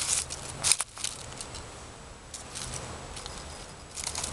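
Rustling and sharp clicks as a paracord fire kit with a carabiner and ferro rod is handled and set down on a rock among dry leaves, loudest in the first second with one sharp click, and more rustling near the end.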